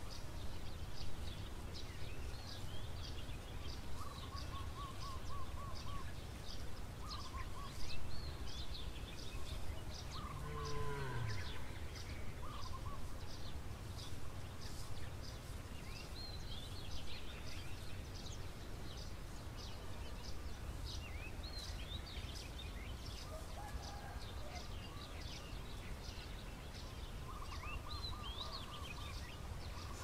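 A flock of small birds chirping, with many short, high chirps overlapping throughout and a few lower trilling calls, under a steady low rumble of outdoor background noise. One call falls steeply in pitch about ten seconds in.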